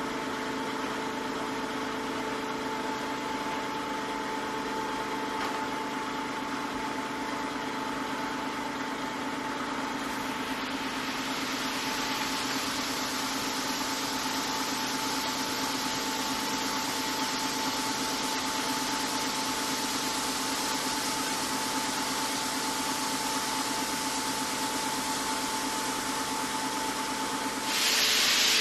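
Tank sprayer's pump running with a steady hum. About ten seconds in, the hiss of a hand spray gun spraying the plants joins it, and it jumps much louder just before the end.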